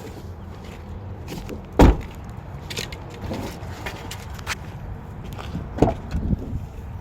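Car doors being shut: a heavy thump about two seconds in and another near the end, the second followed by a few lighter knocks, over a steady low background rumble.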